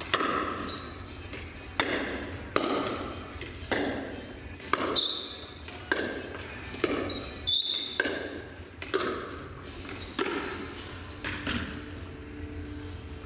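Pickleball rally: sharp hollow pops of paddles striking the plastic ball, mixed with the ball bouncing on the hard floor, about one to two hits a second and echoing in a large hall. A few short high squeaks come in the middle of the rally.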